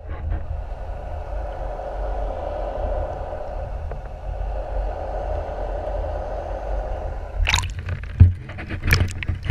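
Muffled underwater sound of sea water around a submerged camera: a steady low rumble and wash. About seven and a half seconds in, sharp splashing as the camera is pulled up and breaks the surface.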